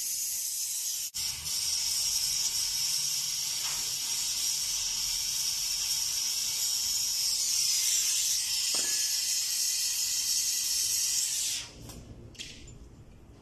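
Brazing torch flame hissing steadily on a copper-to-aluminium refrigerant pipe joint, with a brief break about a second in, then shut off abruptly near the end, leaving faint handling sounds.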